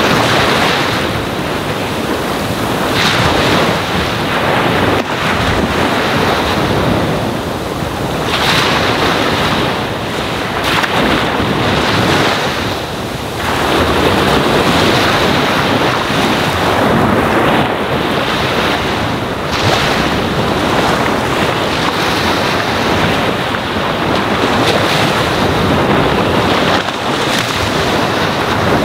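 Ocean waves washing onto a sandy shore: a continuous rush of surf that swells every few seconds as each wave breaks and runs up the sand.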